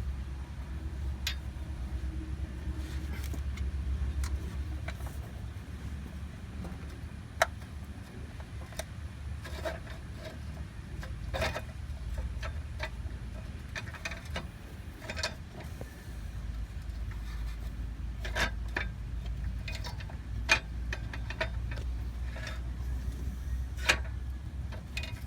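Scattered sharp metallic clinks and taps of hand tools and parts being handled, irregular and a few seconds apart, over a steady low rumble.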